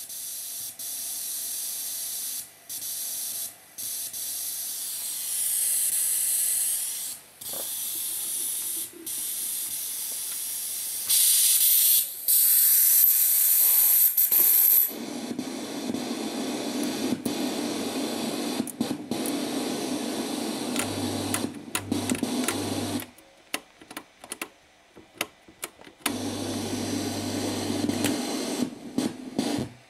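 Hiss and rushing noise from a recapped EQ-1800 stereo graphic equalizer, changing tone as its sliders are moved. It is a bright, loud hiss about halfway through, then a lower, darker noise with a low hum, cutting out briefly several times. The owner calls the unit a noise generator: it puts out noise rather than clean sound.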